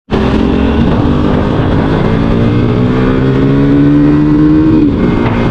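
KTM Duke 390's single-cylinder engine running through an SC-Project full-system exhaust with the catalytic converter deleted. The revs climb steadily for about four seconds, then drop off near the end.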